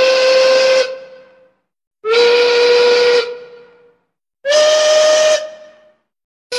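Steam locomotive whistle sounding three short blasts of about a second each, evenly spaced, the third a little higher in pitch; each blast trails off in an echo.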